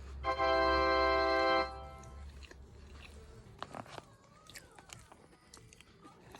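A loud, steady tone rich in overtones, held for about a second and a half near the start. It is followed by small clicks and crunches of food being bitten and chewed.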